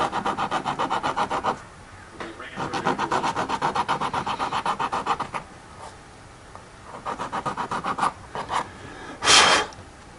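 Rapid back-and-forth rasping strokes, about six a second, from a small file worked on a part of a 1/64 scale diecast car. The strokes come in three runs with short pauses between, then a few separate strokes, and a short, loud whoosh of noise near the end.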